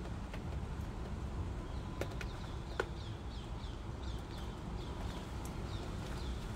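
Steady rain and wind noise with a few sharp taps and crinkles from a shiny nylon puffer jacket. From about two and a half seconds in, a bird calls with a quick run of short falling chirps, two or three a second.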